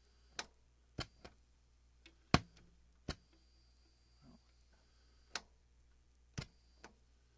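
About eight sharp clicks and pops at irregular intervals from the opened Panasonic RX-5250 boombox as its switches and knobs are worked after it is switched to radio; the loudest comes a little over two seconds in.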